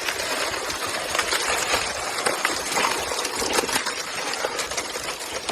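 Thin sheet ice on Lake Baikal crunching: a dense, continuous crackle of many small clicks and tinkles.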